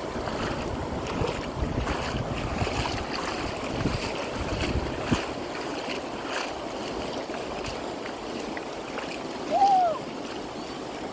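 Surf and waves washing, with wind buffeting the microphone. Near the end a short call rises and falls in pitch, the loudest sound.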